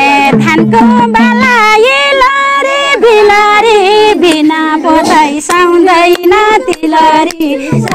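A woman singing a Nepali folk song in long, bending phrases, with sharp strokes of a madal hand drum between the notes.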